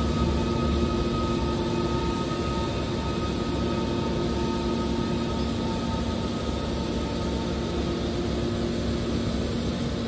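Hydraulic power unit of a scrap-metal baler running steadily: a constant machine hum with several steady tones over a noisy bed.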